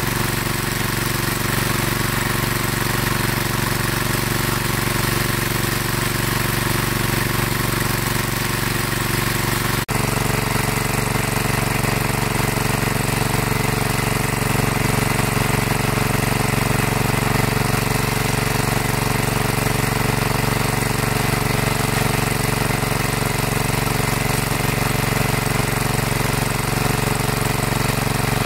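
Small engine-driven water pump running steadily. There is a brief click about ten seconds in, after which the tone shifts slightly.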